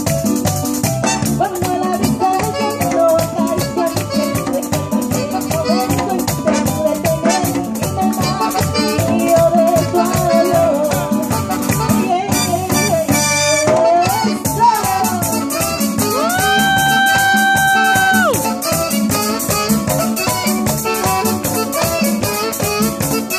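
Live merengue band playing: fast shaker-like percussion over congas and drum kit, with a horn section of trumpets and trombones. About two-thirds through, one long held note scoops up into pitch and falls away at its end.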